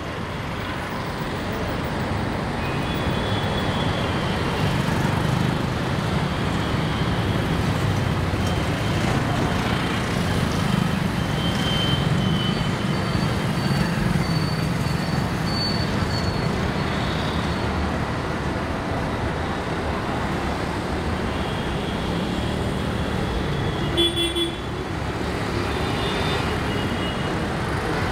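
Steady city road traffic: the running of auto rickshaws, motorcycles and cars passing close by, with short horn toots now and then and a sharper horn sound late on.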